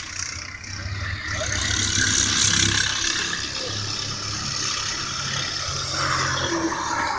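Go-kart engines running as karts circulate on the track, a steady hum that swells about two seconds in and again near the end.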